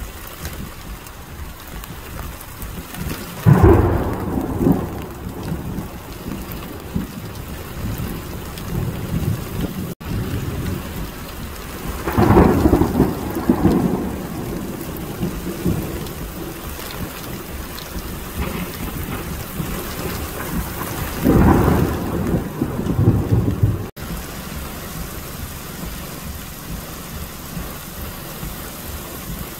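Heavy rain pouring steadily onto a flooded street, with three rolls of thunder rumbling over it: one a few seconds in, one near the middle and one about three-quarters through.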